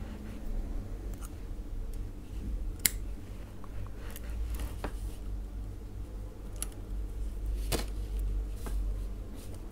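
Small handling sounds from working crochet thread and a beaded bracelet: a few sharp clicks, the loudest about three seconds in, over a low steady rumble.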